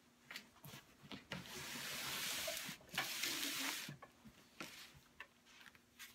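Rustling and rubbing of a car seat cushion cover and its straps being handled: a scratchy hiss for about two and a half seconds starting a little over a second in, with a few light clicks and knocks around it.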